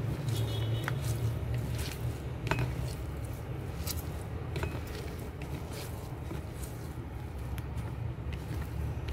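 Hands squeezing and mixing grated coconut with chopped sembukan leaves in a plastic bowl for bothok: soft rustling with scattered light clicks, over a steady low rumble.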